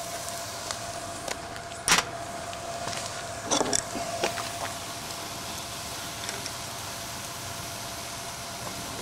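An adjustable wrench clinks against the metal cap of the oil cup on a small steam engine's cylinder: one sharp click about two seconds in, then a quick cluster of clicks around the middle. Underneath runs a steady hiss with a faint steady whine.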